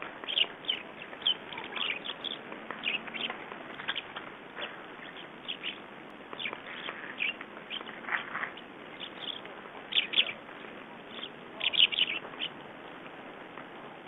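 A flock of small songbirds chirping, with many short calls in quick succession, over a steady hiss.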